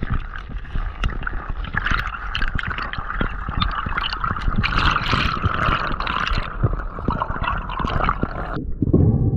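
Underwater sound through an action camera's waterproof housing as the diver swims: a muffled rush of water with many small crackles and clicks. Near the end the crackle and upper hiss cut off suddenly, leaving a duller low rush.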